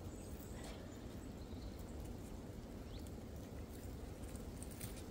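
Faint clicks and scrapes of a wire snare cable being worked loose with a bolo knife, a few light taps scattered through, over a low steady rumble.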